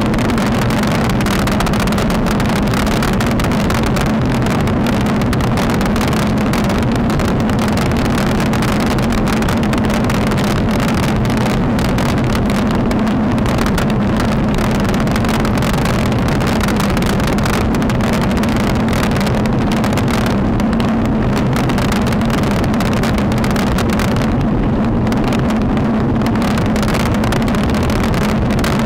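Steady wind buffeting and road rumble on the microphone of an action camera mounted on a moving road bike, a constant low drone with no let-up.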